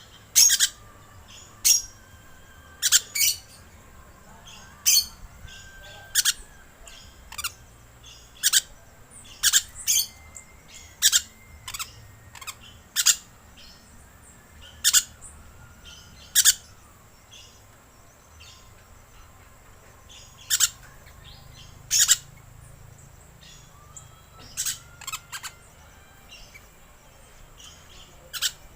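Green lorikeet giving short, shrill screeching calls at irregular intervals, some in quick pairs, played as a lure call for lorikeets.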